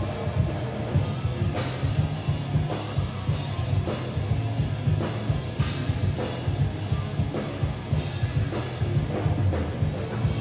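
Hard rock band playing live: electric guitars driving over a pounding drum kit with crashing cymbals.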